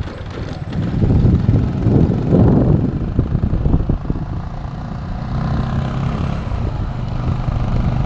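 Motorcycle engine running while riding, with wind buffeting the microphone; a steady engine hum comes through more clearly in the second half.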